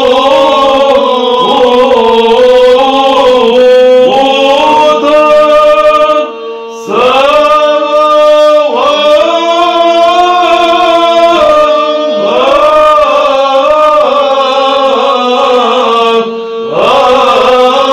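Byzantine chant sung in Arabic by a choir of male monks: a melody line over a steady held drone (the ison), breaking off briefly twice.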